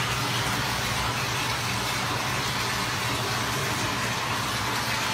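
Steady whooshing noise with a low hum underneath, unchanging throughout, like a motor-driven fan or blower running.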